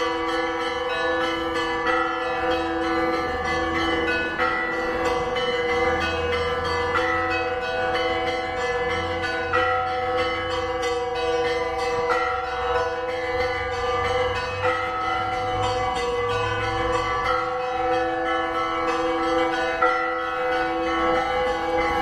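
Russian Orthodox church bells ringing a continuous peal: smaller bells struck in quick succession over the long ringing of larger bells.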